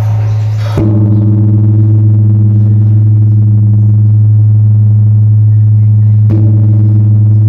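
Large five-ton bronze bell, newly assembled and being test-struck, hit twice, about a second in and again near the end. Each blow is followed by a deep, steady humming ring that carries on between the strikes.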